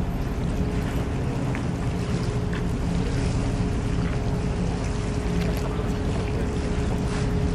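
Steady low drone of a ship's engine with a constant hum, over a light wash of wind and water.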